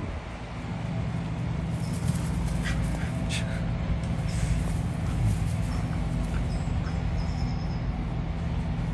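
Two puppies, a golden retriever and a brindle pup, play-wrestling on grass, their play making only small, quiet sounds. A steady low mechanical hum runs underneath.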